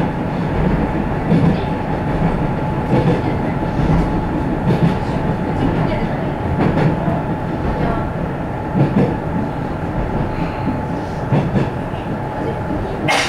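Cabin noise of an Ise Railway Ise-III diesel railcar running at speed: a steady engine-and-running rumble with a thin steady tone. Wheels knock over rail joints every couple of seconds, with a sharper click near the end.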